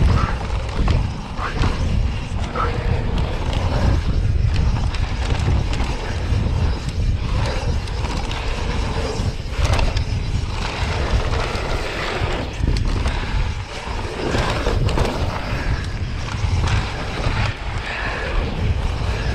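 Pivot Firebird mountain bike descending a dry, loose dirt and gravel trail at speed: tyres rolling and crunching over stones, with wind rumbling on the mounted camera's microphone and scattered knocks and rattles from the bike over bumps.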